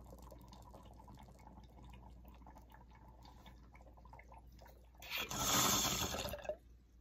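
18-inch glass beaker bong bubbling steadily as smoke is drawn through its water. Near the end comes a much louder rushing hiss of air through the bong for about a second and a half.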